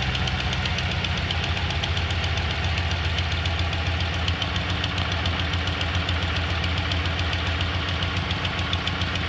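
Dodge Ram 1500's 5.7-litre Hemi V8 idling steadily with a rapid, even ticking over the engine note. The owner asks whether it is the normal Hemi tick or an exhaust manifold leak, such as from a broken manifold bolt.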